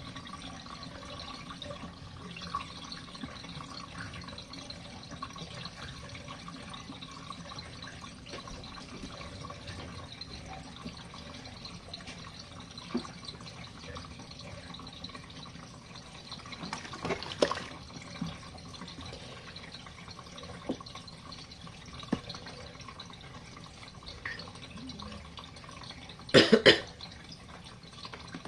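Small RV washing machine draining after its rinse: a steady run of water trickling and dripping out through the drain. A short, loud double noise comes near the end.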